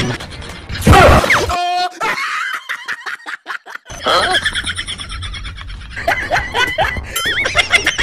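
Dubbed comedy soundtrack: background music with a string of cartoon sound effects and bursts of canned laughter, including a loud sudden effect about a second in and a run of rapid clicks in the middle.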